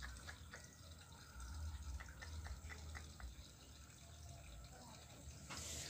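Faint dripping and small plinks of water, scattered through, over a low rumble, with a rise in hiss near the end.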